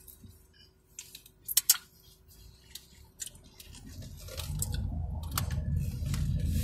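Scattered sharp clicks and crinkles of a paper-wrapped taco being handled, then a low car rumble building from about four seconds in.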